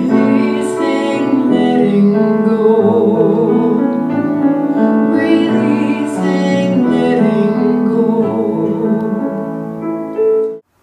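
A woman singing with piano accompaniment, some held notes wavering in pitch; the song cuts off suddenly just before the end.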